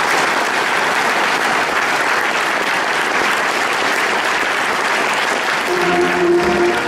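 Audience clapping steadily as a speech ends. Music with a few held notes comes in under the applause near the end.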